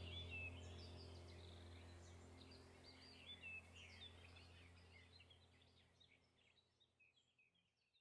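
Faint birdsong, many short chirps, over a low steady drone; both fade out gradually, the drone dying away near the end.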